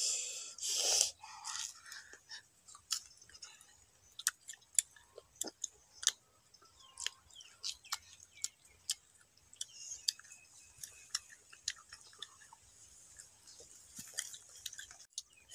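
Raw green mangoes being bitten and chewed: a string of irregular, crisp crunches.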